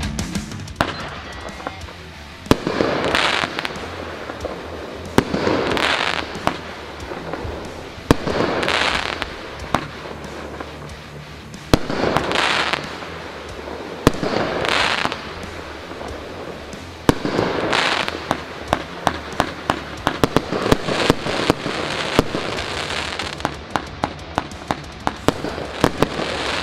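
A 24-shot consumer firework cake firing shot after shot: sharp reports, each shot followed by a rush of hiss about a second long as it breaks, coming every two to three seconds. About two-thirds of the way through, the sharp pops come much faster, several a second.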